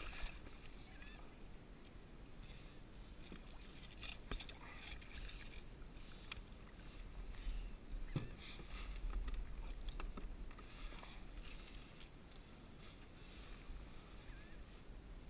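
Water splashing and lapping against a plastic kayak hull as a hooked bluefish is worked alongside, with a few scattered knocks and clicks on the hull and a low wind rumble on the microphone.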